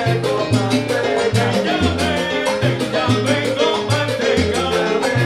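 Live salsa band playing: a syncopated bass line under keyboard, with timbales, congas and güiro keeping a dense, steady rhythm.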